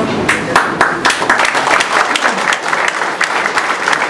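A room of people applauding: a few scattered claps at first, filling out into steady applause about a second in.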